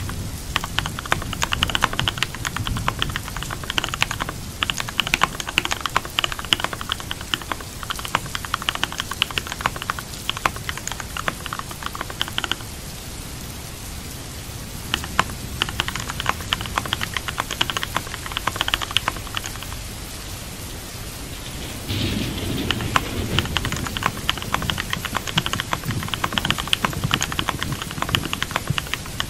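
Computer keyboard typing in bursts, stopping twice for a couple of seconds, over steady rain. About 22 s in, the rain background turns suddenly louder and deeper.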